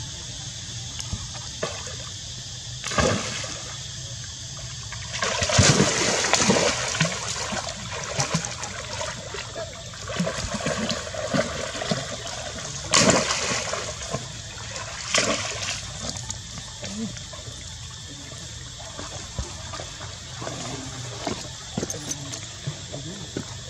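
Water splashing and sloshing in a stone pool as monkeys move through it, in irregular bursts: the biggest about five to seven seconds in, others around three, thirteen and fifteen seconds.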